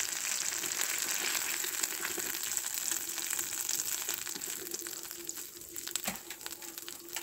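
Mushroom chops deep-frying in hot oil in a wok: a dense sizzle and crackle that thins out after about four seconds, once the chops are lifted out with a slotted spoon. A short knock comes about six seconds in.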